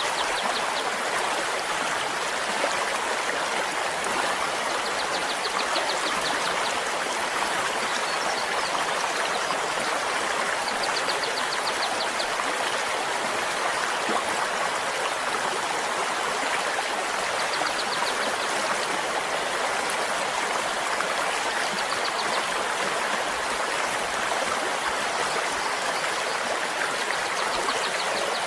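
A stream flowing steadily, with water splashing and gurgling in an even, continuous rush. A few times, brief high trills of rapid ticking sound faintly over the water.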